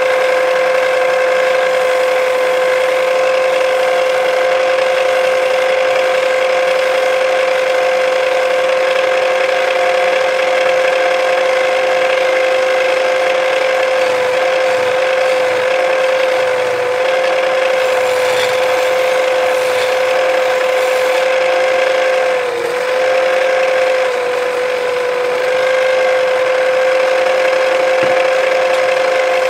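Wood lathe motor running steadily with a loud, even hum while a wooden spindle turns; the hum's pitch sags briefly about twenty-two seconds in.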